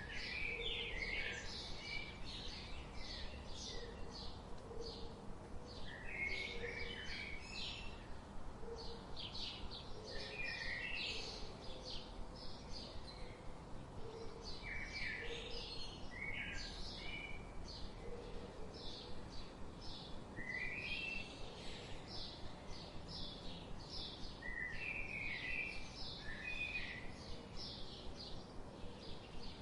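Wild birds chirping continuously: many short, high chirps in quick succession from several birds, with softer low calls beneath.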